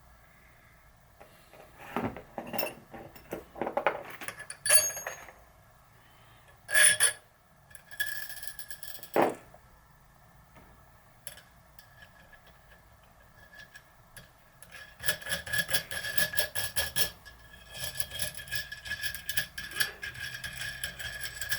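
Small steel press parts (washers, spacers, nut, tube) clinking and knocking as they are handled on a bicycle freehub body, with a few sharper knocks, then a fast run of light metallic clicks over the last several seconds.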